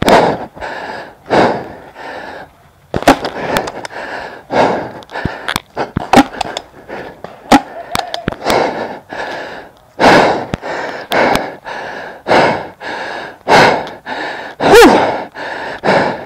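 Heavy, rapid breathing close to the microphone, about one breath every half to one second, with a few sharp clicks in between.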